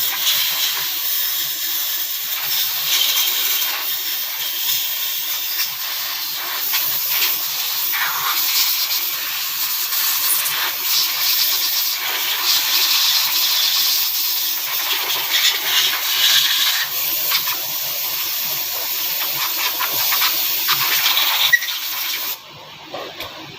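Compressed-air blow gun hissing steadily as it blows out engine parts, cutting off suddenly near the end.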